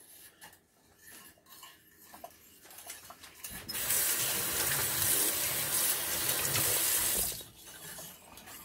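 Kitchen tap running for about four seconds, starting a few seconds in and cutting off sharply near the end. Before it, faint scraping of a spoon stirring in a steel saucepan.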